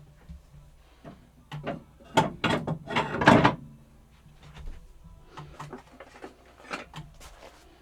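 Wooden knocks and clatter of hand tools being set into and shifted around a wooden tool chest. Scattered single knocks, with a burst of louder clattering about two to three and a half seconds in.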